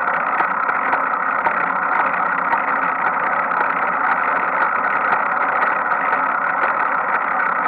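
Bicycle rear sprocket and drivetrain turning, a steady noise with faint light clicks now and then. This is the knocking from the rear sprocket area that has been there since last year and has not gone away.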